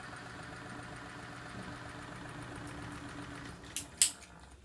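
Small electric clip fan, just repaired after running slow and noisy, running with a steady hum and a low tone. About three and a half seconds in the hum stops, and two sharp clicks follow.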